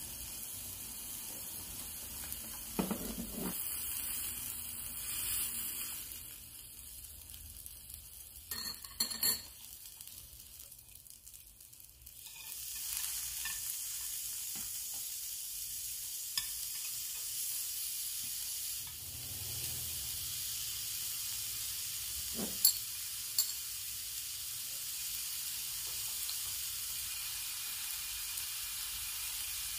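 Pieces of black pork sizzling on a round grill pan, a steady hiss that dies down for a few seconds and comes back fuller about twelve seconds in as fresh meat goes onto the pan. A few sharp clicks of metal chopsticks against the pan.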